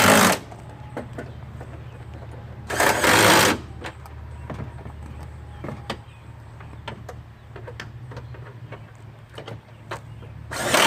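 A power driver tightening bumper bolts in three short bursts of about a second each: one at the start, one about three seconds in and one near the end. Small clicks come in between.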